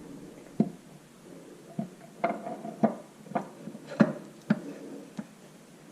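Irregular metal clinks and knocks as a tractor engine's cast-iron oil pump is set into place in the engine block, its gear meeting the camshaft drive gear. About nine sharp knocks with short ringing; the loudest comes about four seconds in.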